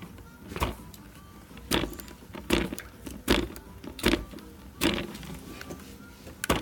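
A series of short thumps, about one every 0.8 seconds, over a quiet background.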